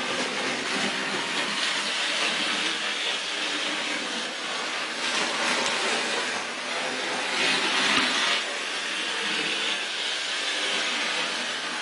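Model LNER A4 steam locomotive and tender running on sectional model-railway track: a steady whirr of its electric motor and wheels rolling on the rails, a little louder about eight seconds in as it passes closest.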